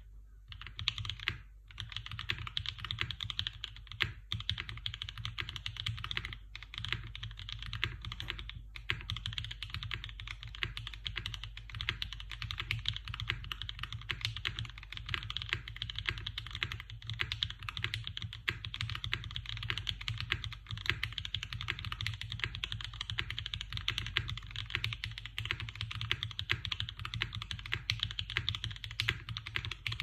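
Continuous fast typing on a 60% mechanical keyboard: 43Studio OP Black switches lubed with a 205g0/105 mix, in a Go60 case with a carbon fibre plate and no foam, under Cherry G80-1800 doubleshot keycaps. A dense stream of keystroke clacks, with a few brief breaks in the first nine seconds or so, over a steady low hum.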